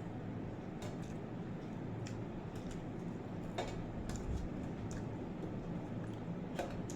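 Eating sounds: scattered small clicks and smacks of someone chewing and eating rice and curry, over a steady low hum.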